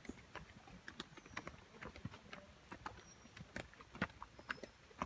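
Footsteps in sandals on a slippery, rocky downhill trail: irregular clicks and knocks, several a second.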